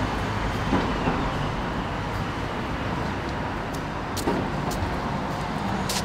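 Street ambience: steady traffic noise, with a few short clicks in the second half.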